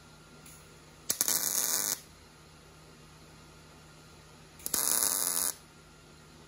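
Welder laying two short tack welds on sheet metal: two bursts of arc crackle, each just under a second, the first about a second in and the second about five seconds in.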